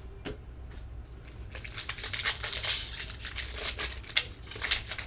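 Trading card pack wrapper being torn open and crinkled while the cards inside are handled. A few light clicks at first, then steady crackly rustling from about a second and a half in.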